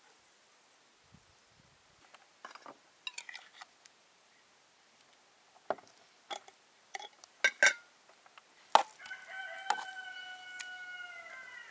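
Several sharp clicks and knocks, the loudest just before the crow. About nine seconds in, a rooster crows: one long held call that drops in pitch at its end.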